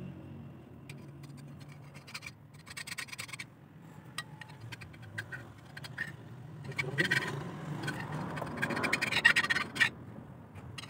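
Hand scraping and rubbing on a metal tractor clutch bearing housing, a run of short scratchy strokes with scattered light clinks, busiest in the last few seconds.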